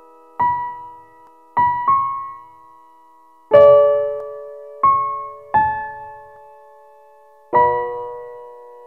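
Slow background piano music: about seven sparse notes and chords, each struck and left to ring and fade, with the fullest and loudest chord about three and a half seconds in.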